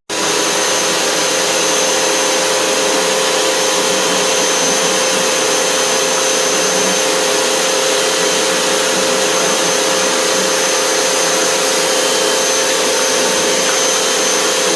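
Motor-driven cleaning equipment running steadily: a loud, even rushing hiss with a constant high whine and a lower hum.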